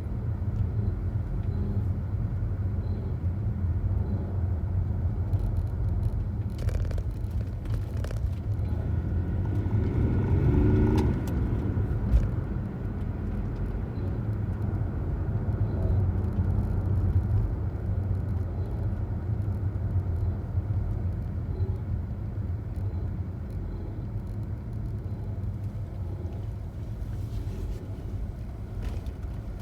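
BMW 730d straight-six diesel engine running steadily, with a weird scratching noise that the owner hears all the time, says does not sound right and cannot identify. It swells briefly about ten seconds in, and there is one sharp click just after.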